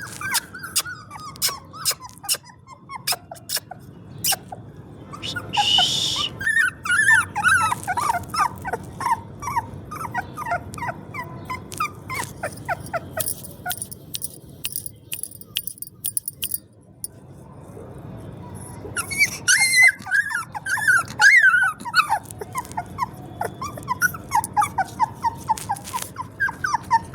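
Newborn puppy squeaking and whimpering in runs of short, high-pitched cries, several a second, with a lull of a few seconds near the middle. Sharp clicks are heard throughout.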